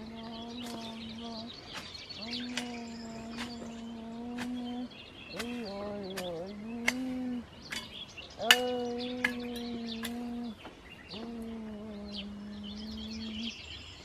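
A hoe striking into garden soil in short, scattered knocks, with small birds chirping. Louder over it is a steady held tone, each lasting about two seconds, repeated four or five times with brief gaps and wavering in pitch once midway.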